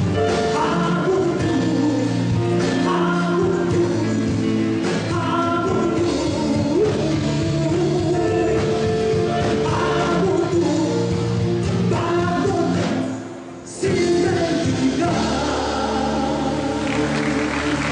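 A woman singing live with a band, her voice over sustained chords and bass. The music drops out briefly about thirteen seconds in, then comes back in, and applause begins near the end.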